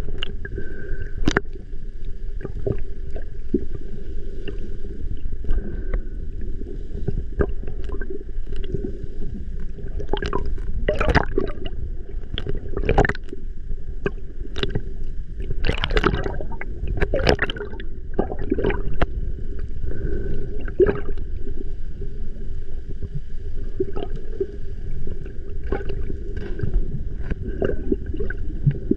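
Water sloshing and gurgling around an action camera held half-submerged at the sea surface, with irregular splashes and bubble bursts from snorkelers kicking their fins, busiest in the middle. A faint steady hum runs underneath.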